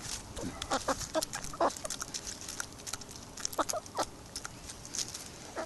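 Hens clucking in short, scattered calls while feeding on mealworms.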